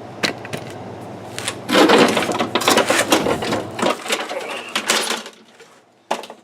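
Handling noise of a camera being picked up and repositioned: scattered knocks and clicks, and a dense stretch of rattling and rustling in the middle, dying down near the end except for one last knock.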